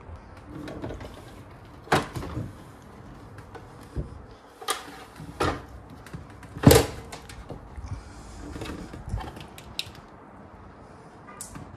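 Minn Kota Terrova trolling motor being stowed by hand: a series of sharp clunks and knocks from the bow mount as the shaft swings up and seats, the loudest a little past halfway through.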